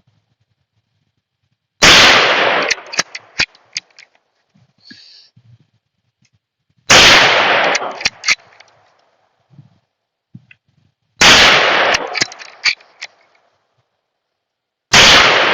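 Four single gunshots, a few seconds apart. Each shot rings off over about a second, with a scatter of sharp ticks and cracks after it.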